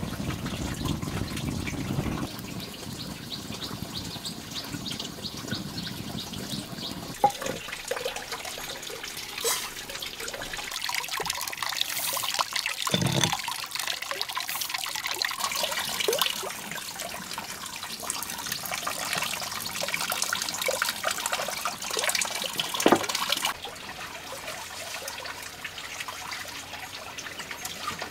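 Running water trickling and splashing, with a few sharp knocks and clinks scattered through.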